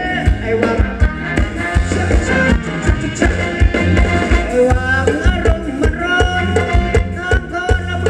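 Live Thai ramwong dance music from a band: a melody over a steady drum beat.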